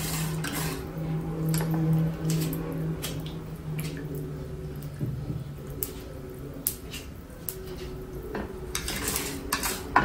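A slotted spatula scraping and tapping a nonstick frying pan in scattered strokes, stirring dals and peanuts frying in a little oil, busiest near the end. A steady low hum runs under the first half and fades about halfway through.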